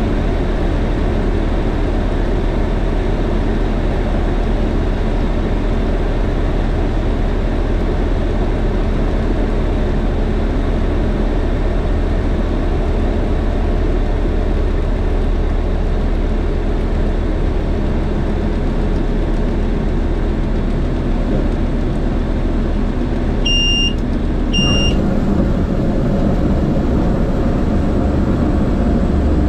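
Steady engine and propeller drone heard inside the cockpit of a single-engine light aircraft during landing and rollout. Near the end come two short high electronic beeps about a second apart.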